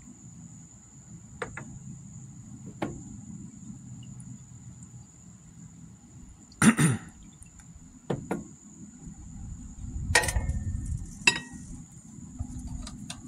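Glass beakers being handled: a few clinks and knocks as they are lifted and set down, the loudest about seven seconds in and more around eight, ten and eleven seconds, over a faint steady high-pitched whine.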